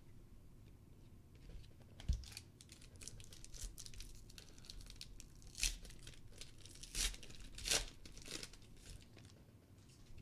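Foil wrapper of a 2014 Panini Prizm World Cup trading-card pack being torn open and crinkled by hand: a run of crackling tears, the loudest rips coming in the second half. A soft thump comes about two seconds in.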